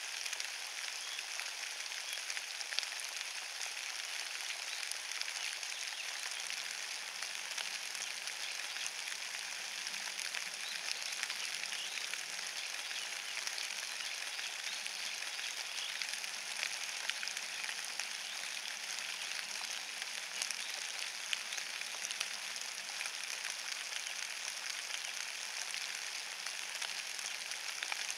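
Steady rain falling on a bed of wet fallen leaves: an even hiss dotted with a dense patter of small drop ticks.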